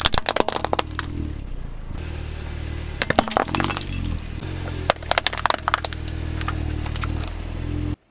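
A hard plastic chattering-teeth toy cracking and shattering under a slowly rolling car tyre. There are three clusters of sharp cracks and snaps: right at the start, about three seconds in and about five seconds in, over a steady low hum.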